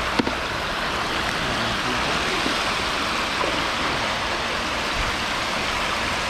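Running water of a small creek, a steady rushing, with one short knock just after the start.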